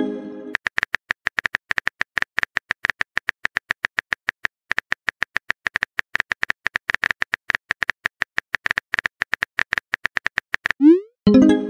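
Rapid typing clicks of a chat app's keyboard sound effect, about ten a second, as a message is typed out letter by letter. Near the end comes a short rising swoosh and a brief bright tone as the message is sent.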